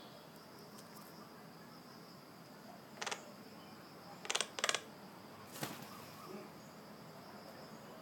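Common myna giving four short, harsh rasping calls, the loudest two close together in the middle, over a steady high-pitched insect drone.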